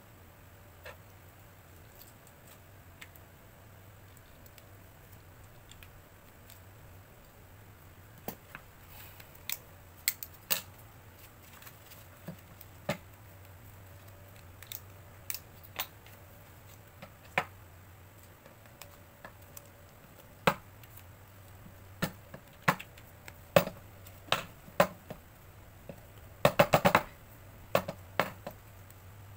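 Paper pieces and a small stack of notepads being handled on a paper trimmer's board: scattered light taps and clicks, coming more often toward the end, with a quick run of taps near the end.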